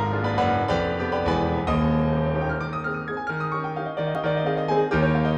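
Background piano music: a melody of struck notes over held bass notes.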